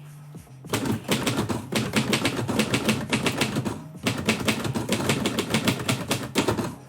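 Typewriter keys striking in two fast runs of many keystrokes a second, with a brief pause about four seconds in.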